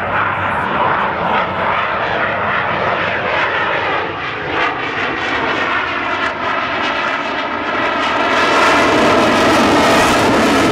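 Jet noise from a Saab JAS 39 Gripen's Volvo RM12 turbofan during a low display pass: a loud, steady rush that grows louder and harsher about eight seconds in.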